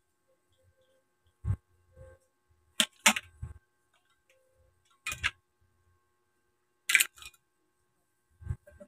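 Cooked crab shells being cracked and pulled apart by hand: several short, sharp snaps spaced a second or two apart, with a few soft thuds between them.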